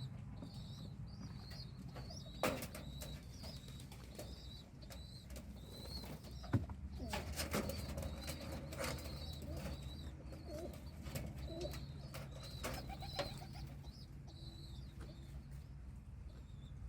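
Pigeon with a breathing problem: a faint high squeak repeats about once a second, with a few sharp clicks and some soft low gurgling in the middle, over a steady low hum.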